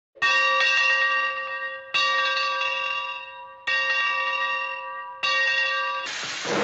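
A bell is struck four times, about 1.7 s apart, and each ring fades before the next strike. Near the end a loud hiss begins.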